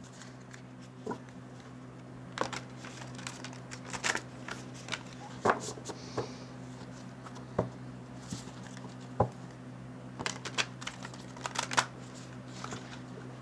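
Brand-new oracle cards being hand-shuffled: scattered soft clicks and taps of the stiff new cards, over a steady low hum.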